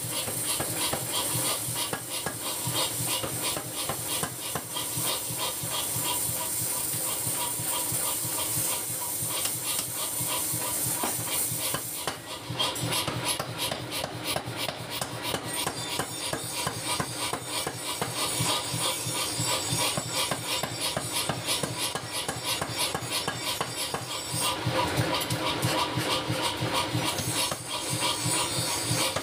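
Mechanical power hammer pounding a red-hot steel blank for a chopper blade, striking in a rapid, steady run of blows.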